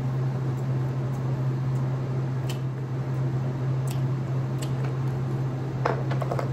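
Steady low hum with a few soft clicks and smacks of someone eating, mostly in the second half.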